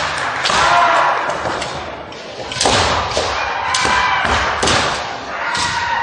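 Kendo bouts in a gymnasium: a run of sharp strikes from bamboo shinai and stamping feet on the wooden floor, irregular and overlapping from several courts, with short shouted kiai among them.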